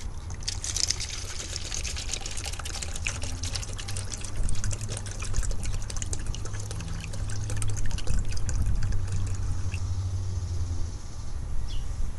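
Harbor Freight mini lathe running with a steady low hum while a tool works the spinning wood, making a dense, scratchy crackle that starts about half a second in and eases off near the end.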